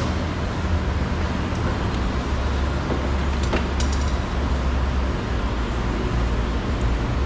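Steady low rumble of background vehicle traffic, with a few faint light clicks scattered through it.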